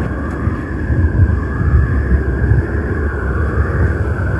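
Tornado wind sound effect: a steady, loud rush of wind with a deep rumble underneath and a high whistling band. It cuts off suddenly at the end.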